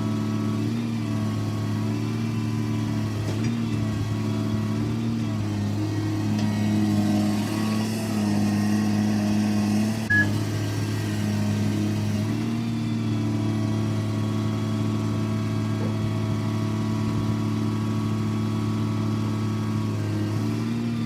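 An engine running steadily. Its pitch rises about 6 s in as it revs, then eases back around 12 s. There is a short sharp click about 10 s in.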